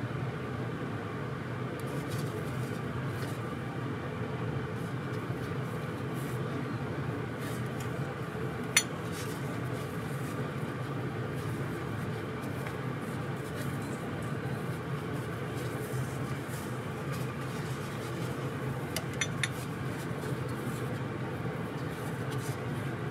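Small clicks and clinks of carburetor parts (vacuum slide, diaphragm, needle, springs) being handled in gloved hands and set down: one sharp click about nine seconds in and a quick few more around nineteen seconds. Underneath runs a steady low hum.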